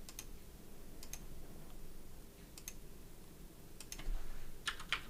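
Faint computer mouse clicks: scattered single and paired clicks, a few seconds apart, over a low room hum.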